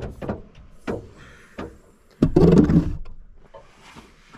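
Gear being loaded into the back of a van: a few light knocks, then about two seconds in a louder thump and scrape as a tripod is laid onto the carpeted cargo floor.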